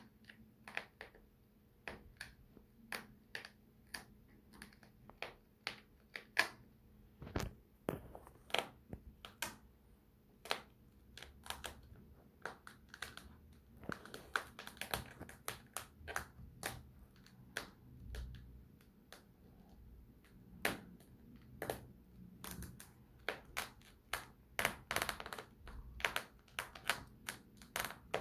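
Quiet, irregular clicks and taps, two or three a second, from high-heeled pumps knocking and creaking against each other as the crossed feet shift, with a soft rustle now and then.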